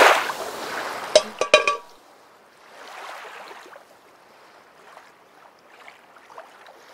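End-card logo sound effect: a whoosh fading out over the first couple of seconds, with a few sharp clicks about a second and a half in, then a faint hiss that swells and fades around three seconds in.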